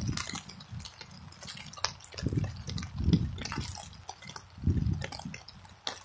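Wind buffeting the microphone in uneven gusts, with scattered sharp ticks of raindrops hitting it.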